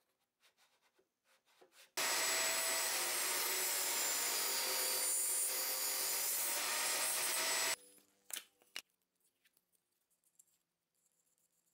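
Table saw running and cutting through a small wooden piece; the saw sound starts abruptly about two seconds in and cuts off abruptly about six seconds later. A couple of sharp knocks follow.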